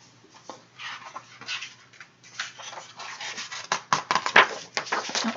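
Irregular rustling and small knocks from something being handled, with the sharpest knocks about four seconds in.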